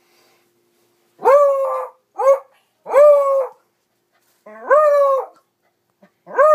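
Beagle barking in drawn-out barks at a mounted boar head on the wall. The barks start about a second in: three long ones and a short one, with another beginning near the end.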